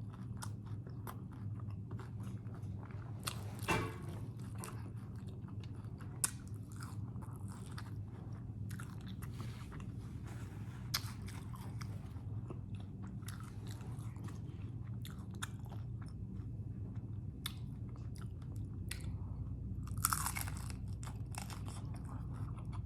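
Close-miked chewing of crunchy hard-shell tacos: a steady run of crisp crunches and mouth sounds, with louder crunches about three seconds in and near the end.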